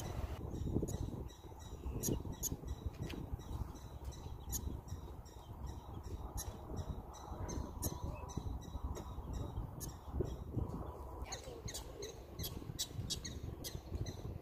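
Prairie dog barking: short, high, chirp-like calls repeated two or three times a second, the rodent's alarm call, over a low rumble of wind on the microphone.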